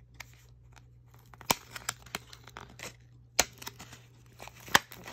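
Card-and-plastic blister pack being torn and pried apart by hand: scattered crackles and crinkles, with three louder sharp snaps, about a second and a half in, about three and a half seconds in, and near the end.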